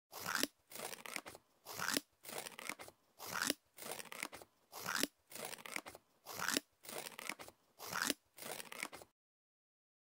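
Small scissors cutting paper in a steady run of crisp snips, with a louder snip about every second and a half. The snipping stops suddenly about nine seconds in.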